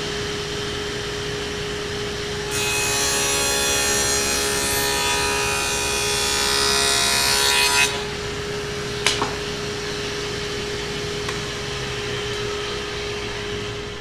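Table saw with a dado stack spinning with a steady hum. From about two and a half seconds to about eight seconds in, it cuts a dado in a wooden board, louder and fuller, then runs free again. A sharp knock comes about nine seconds in.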